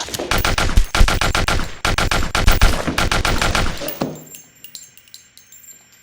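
Rapid automatic gunfire in three long bursts, roughly ten shots a second, with brief breaks between them. The firing stops about four seconds in and the echo dies away.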